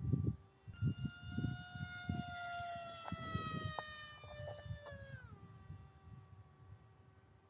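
Electric motor and 3-blade 5x4.5 propeller of a small RC flying wing (XING-E Pro 2207 brushless motor) whining in flight. The whine jumps higher in pitch about a second in, sags slowly, then drops back to a lower pitch at about five seconds.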